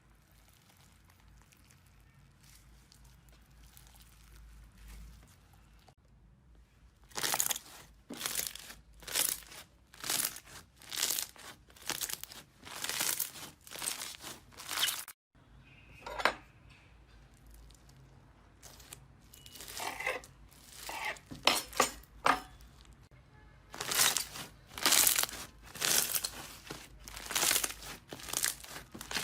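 Crisp crunching and crinkling of a crunchy material being worked by hand, in short strokes about one a second. It starts about seven seconds in and pauses briefly around the middle.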